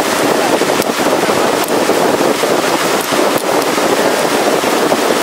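Motorised wooden river longboat under way: a steady, loud rush of wind on the microphone and water along the hull, with a few scattered sharp crackles.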